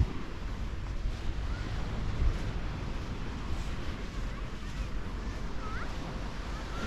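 Wind buffeting the microphone, with a low rumble over the steady wash of sea surf. A brief faint chirp comes near the end.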